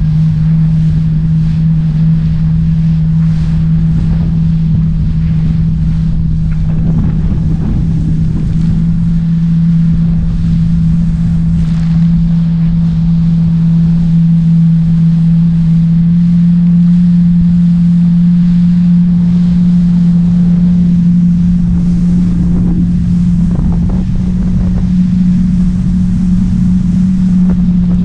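Jet ski engine running steadily at speed, its drone edging up slightly in pitch around the middle and again near the end, with wind buffeting the microphone and water rushing past the hull.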